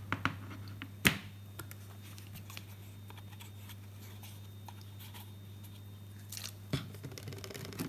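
Close handling sounds: tissue paper rustling and a few small sharp clicks, the loudest about a second in, over a steady low hum.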